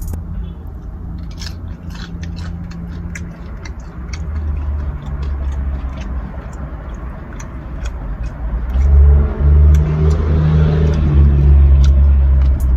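Close-up chewing of a powder-coated hot chicken tender dipped in sauce, with many short wet clicks and crunches from the mouth. A low bass line sits underneath and grows louder in the last few seconds.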